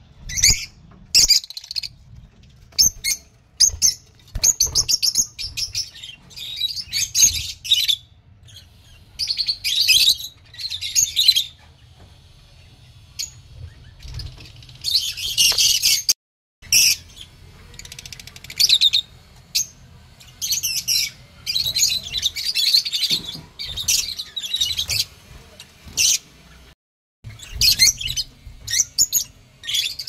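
African lovebirds calling in an aviary: quick, high-pitched chirps in irregular clusters, with short pauses between them.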